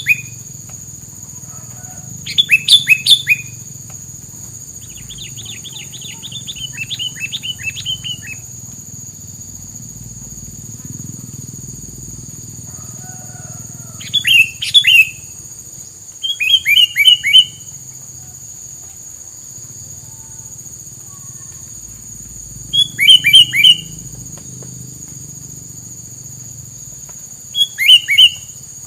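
A tilang songbird singing in loud bursts of fast, sharply falling chirps, each burst about a second long, repeated about seven times with pauses between, and one softer, longer run about five seconds in. It is the bird's 'gacor' full song, used as filler song for training other birds. A steady high tone runs underneath.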